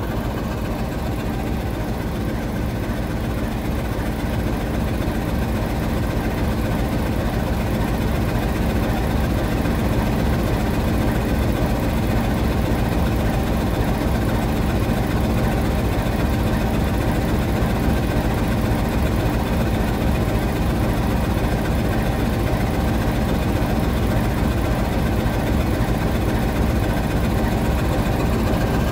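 Diesel engine of a KTMB Class 26 'Blue Tiger' diesel-electric locomotive running steadily at close range, growing slightly louder.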